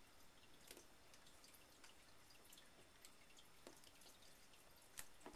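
Faint, scattered crinkles and clicks of hands turning a plastic-shrink-wrapped cardboard box, with a sharper click about five seconds in, over a low hiss.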